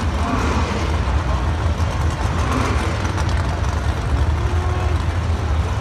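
Drag-racing car engines idling, a deep steady low rumble with a busy background haze.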